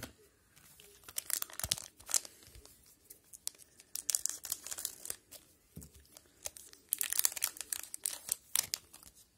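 2019/20 O-Pee-Chee hockey card pack wrapper being torn open and crinkled, in three bursts of crackling a few seconds apart.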